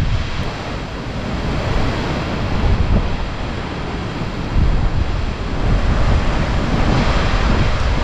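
Typhoon-strength storm wind gusting through the trees and buffeting the microphone, swelling louder about halfway through.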